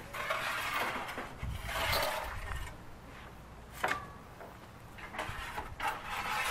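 Long wooden pole scraping and raking across the floor of a domed clay wood-fired oven in repeated strokes, with a sharp knock a little under four seconds in.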